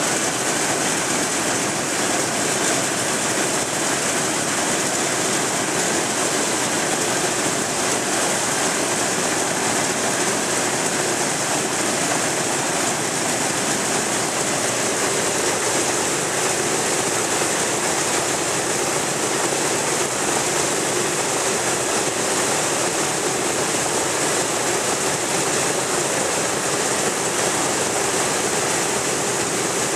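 Boeing B-17's Wright R-1820 Cyclone nine-cylinder radial engines running at idle, a steady unbroken drone.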